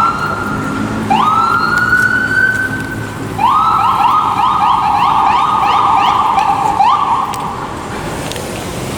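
Emergency vehicle's electronic siren: two rising wails, then a fast repeated yelp from about three and a half seconds in that stops near seven seconds, over street traffic.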